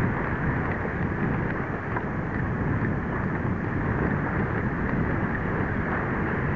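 Wind buffeting the microphone: a steady rushing noise with no let-up.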